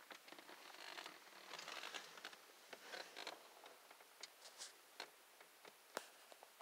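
Faint rustling and crackling of dry leaf litter and grass from movement close by, followed by scattered sharp clicks and snaps, the sharpest about six seconds in.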